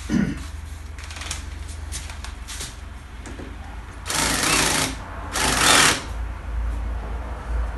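Cordless screwdriver running in two short bursts, about four and about five and a half seconds in, driving out screws from an alternator with a bit. Light clicks of handling come before.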